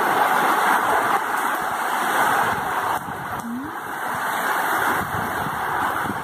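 Heavy rain pouring steadily, with water streaming off the roof eaves. It eases slightly about halfway through, and a brief rising tone sounds once just after.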